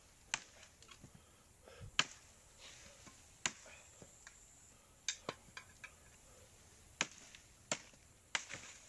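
Sharp, irregular chops of a knife blade hacking through the lines of a net, about eight strikes spaced roughly a second or more apart.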